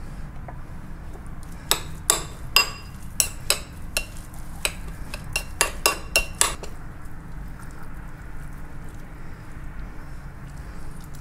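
A metal spoon clinking against a ceramic bowl while stirring chopped lobster with mayonnaise: a quick run of sharp, ringing clinks starting about two seconds in and stopping after about five seconds.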